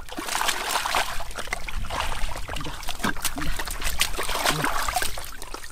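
Hands digging through waterlogged mud, with wet squelching, slopping and splashing of muddy water coming in irregular bursts.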